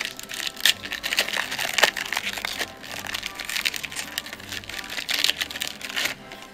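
Foil wrapper of a 1994 Finish Line Gold racing-card pack crinkling as it is torn open by hand: a dense run of crackling that stops near the end.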